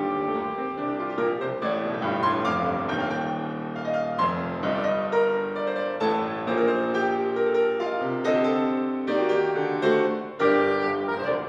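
Steinway grand piano and soprano saxophone playing classical chamber music at a fast pace, with the piano to the fore.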